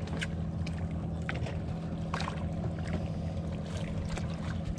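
A boat's engine idling with a steady low hum, with a few brief clicks over it.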